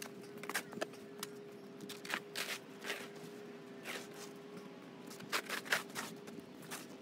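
Footsteps: irregular scuffing steps, with a steady hum underneath.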